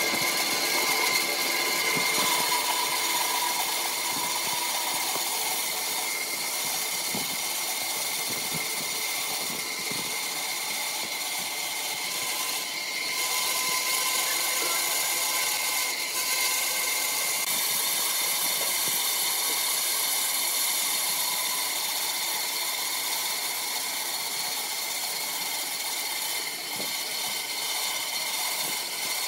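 Band saw running and cutting a curved line through a thick block of wood: a steady running sound with a high whine throughout.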